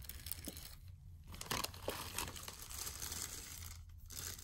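Packaging crinkling and rustling as tobacco pipes are unwrapped by hand: irregular crackles, with two brief pauses, about a second in and near the end.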